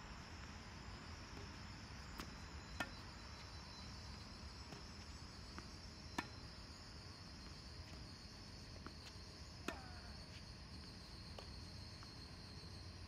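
Tennis balls hit on racquets and bouncing on a hard court, sharp pops a few seconds apart, over a steady high chorus of crickets.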